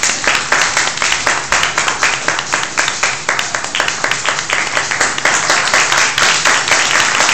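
Audience applauding and clapping, with some sharp hand-claps close by standing out louder than the rest.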